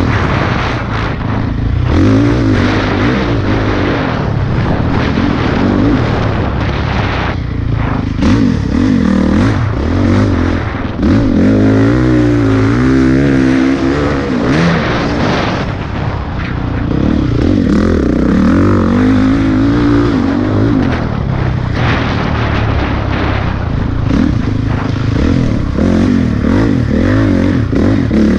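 Dirt bike engine revving up and backing off over and over while ridden hard, its pitch rising and falling.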